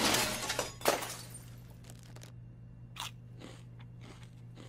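The crash of a vending machine's shattered glass front dies away in the first half second, followed by a sharp click about a second in. A low steady hum runs underneath, and a couple of short crunches come about three seconds in.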